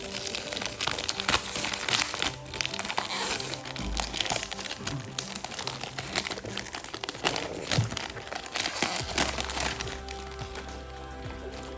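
Packaging crinkling and crackling as a fragrance box is unwrapped by hand, over background music; the crinkling stops about nine seconds in.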